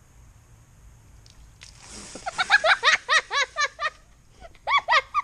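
High-pitched laughter: a quick run of short "ha" syllables starting about two seconds in, with another burst of laughing near the end. A short hiss comes just before the first laugh.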